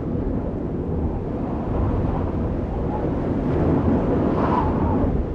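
Loud rumble and rush of a passing electric suburban train, swelling up and holding steady.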